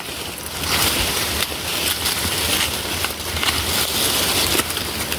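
Heavy monsoon rain falling steadily: an even hiss with faint scattered patters.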